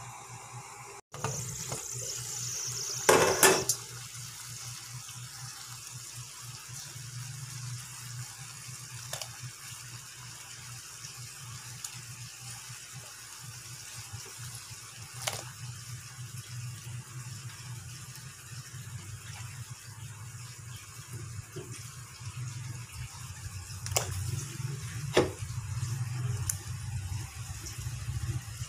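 Water heating toward a boil in a stainless steel pot on the stove: a steady bubbling hiss over a low rumble. A brief loud clatter comes about three seconds in, and a few sharp clicks follow later.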